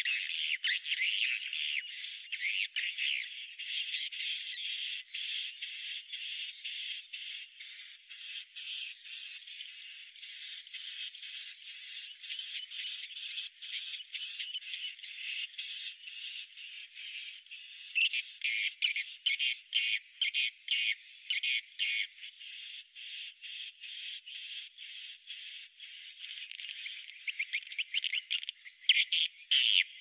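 Edible-nest swiftlets twittering in a dense, continuous stream of high, rapid rising chirps. The chirps turn more broken and separate about two-thirds of the way through. This is a swiftlet roosting lure call (suara inap), played in swiftlet houses to draw the birds in to roost.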